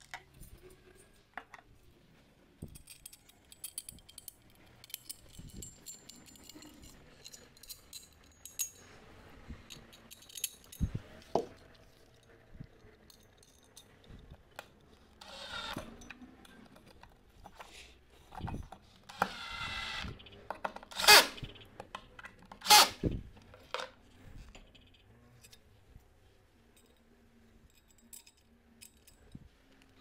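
Metal table-frame pieces and screws clinking and knocking on a tabletop during assembly, with two short runs of a cordless drill driving screws around the middle. The loudest sounds are two sharp metal clanks just after the second drill run.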